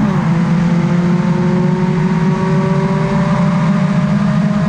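VITA-01 race car's engine heard from the cockpit under full throttle. It shifts up right at the start, then pulls steadily with its pitch slowly rising as the car accelerates down the straight.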